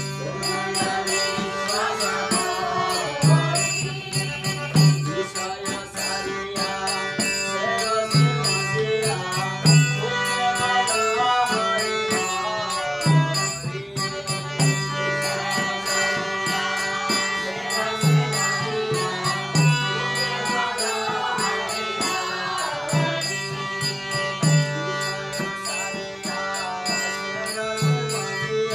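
Hindu devotional bhajan (kirtan): singing with a steady drone underneath, a low repeating note pattern, and hand cymbals striking on a fast even beat.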